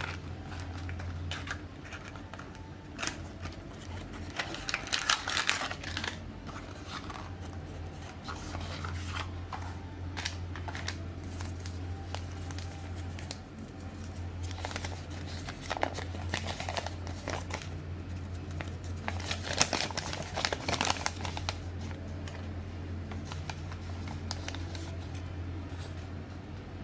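Medicine packaging being handled and opened: bursts of crinkling and crackling clicks in three or so spells, over a steady low hum.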